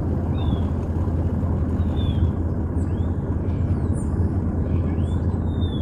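Boat engine running steadily with a deep, even hum, with a few brief high chirps over it.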